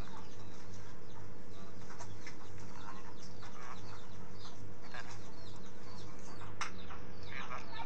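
Scattered small bird chirps over a steady, evenly pulsing low hum.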